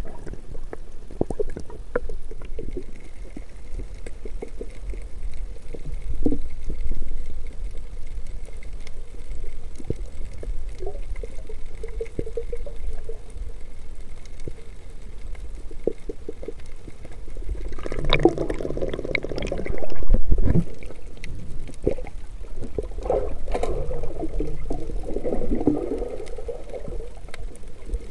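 Underwater sound heard through a submerged camera: a steady low water rumble with scattered clicks, and two bubbly gurgling stretches about two-thirds of the way in and again near the end, with a loud low thud between them.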